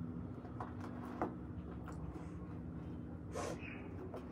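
Faint handling of a white sneaker's laces: a few soft ticks and rustles, with a short sniff or breath about three and a half seconds in, over a steady low hum.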